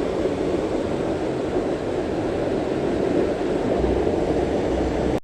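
Steady rushing of river water, an even noise with no distinct events, with a deeper rumble about four seconds in.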